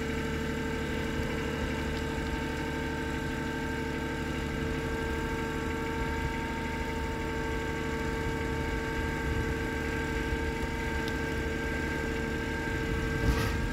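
Compact tractor's engine running steadily, with a constant whine in its note, as its front loader pushes a heavy load across the ground. A single knock sounds near the end.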